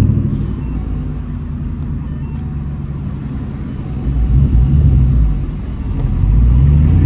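2014 Mustang GT's 5.0 Coyote V8 running, a steady low rumble whose revs climb about four seconds in, drop back, and rise again near the end.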